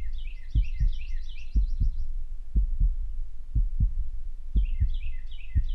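A low double thump repeating about once a second, like a heartbeat. Over it come two bursts of rapid, high chirping like bird song: one at the start and one near the end.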